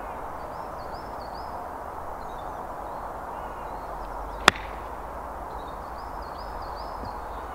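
A 54-degree wedge striking a golf ball once on a short bump-and-run chip: a single sharp click about four and a half seconds in.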